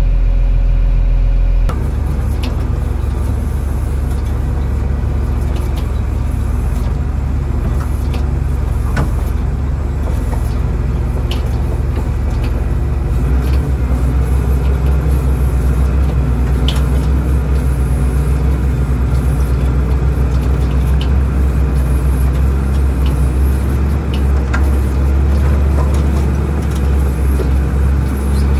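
Motor grader's diesel engine running steadily, with a few short knocks. About halfway through, the engine gets louder.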